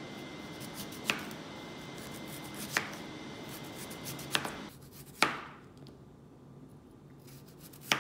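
Chef's knife slicing Korean radish and potato on a plastic cutting board, each stroke ending in a sharp knock of the blade on the board. Five knocks, irregularly spaced a second or two apart.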